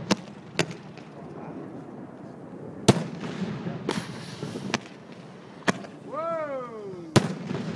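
Aerial fireworks going off overhead: about seven sharp bangs at irregular intervals. Near the end a whistle falls in pitch for about a second and ends in a bang.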